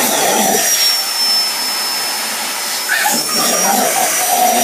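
Canister vacuum cleaner running with a steady high suction whine while a dog holds its mouth over the open end of the wand. The sound dips slightly from about a second in and comes back up about three seconds in.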